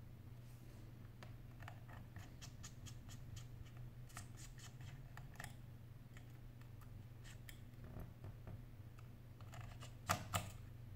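Faint small clicks and scrapes of a small hand tool and fingertips on the metal screws, brackets and frame of an opened iPhone 8 Plus, with two sharper clicks near the end.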